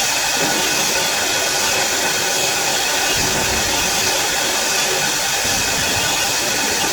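CNC wood lathe running, a steady hiss with faint steady whining tones that holds an even level throughout.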